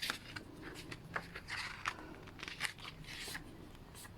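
Faint paper handling: pages of an album photo book being turned, with light clicks and a few short rustles of the glossy paper.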